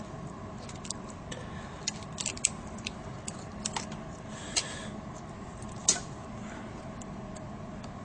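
Scattered small plastic and metal clicks and taps as fingers and a screwdriver jiggle a laptop LCD panel's cable connector out of its clip, with one louder click about six seconds in, over a faint steady hum.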